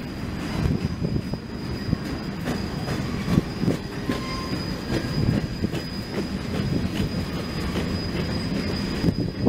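Covered hopper cars of a CN freight train rolling past: a steady low rumble with frequent wheel clacks over rail joints and a thin, steady high-pitched wheel squeal.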